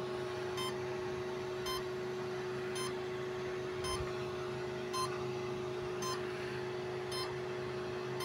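Short electronic beeps repeating about once a second over a steady electrical hum, from a motor speed controller (ESC) that is powered up. This is the idle beep an ESC gives while it waits for a throttle signal.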